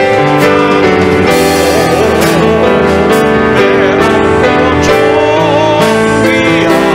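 A man singing a Korean worship song at the microphone, with vibrato on held notes, over instrumental accompaniment.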